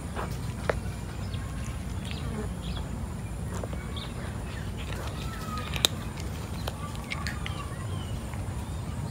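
Cat chewing dry kibble: scattered crisp crunches, one sharper than the rest about six seconds in, over a steady low background rumble, with faint bird chirps.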